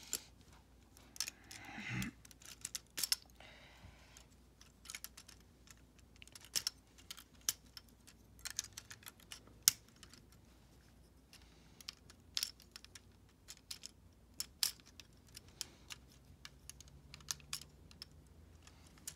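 Hard plastic LEGO Bionicle parts clicking and rattling as a figure is handled and pieces are snapped onto it: many small, irregular clicks, with a soft rustle twice in the first four seconds.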